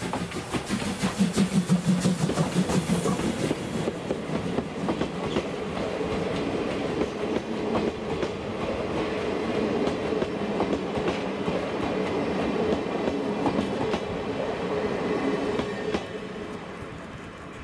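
Steam-hauled train of old-type passenger coaches passing. In the first few seconds there is hiss and fast rhythmic pulsing as the locomotive goes by, then the coaches roll past with wheels clicking over the rail joints, fading away near the end.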